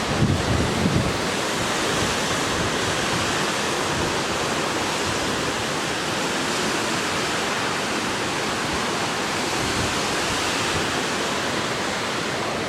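Water rushing steadily out of a dam's outlet and churning below it: a continuous, even rush with no break. A few low bumps of wind hit the microphone in the first second.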